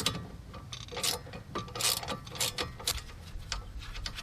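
Socket ratchet wrench clicking in quick, irregular runs as a rear brake caliper bolt is turned out.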